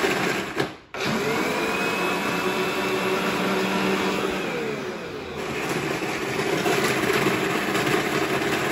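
Countertop frozen-drink maker's motor blending ice. It starts up about a second in with its pitch rising, runs steadily, winds down about five seconds in, then runs again.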